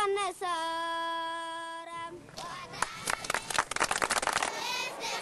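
A group of children singing together, holding one long note that ends about two seconds in, followed by a couple of seconds of hand clapping.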